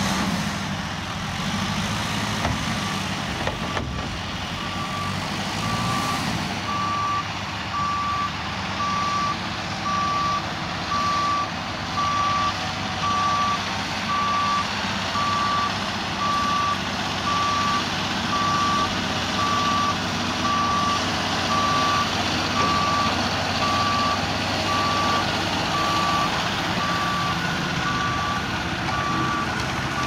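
Diesel farm tractors running steadily while muck spreading, with a machine's reversing alarm beeping about once a second.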